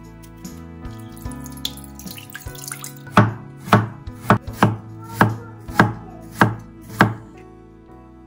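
Kitchen knife slicing peeled turmeric root thinly on a wooden cutting board: about eight sharp chops, a little under two a second, starting about three seconds in. Before that, light scraping and clicks of a small knife peeling the root, over soft background music.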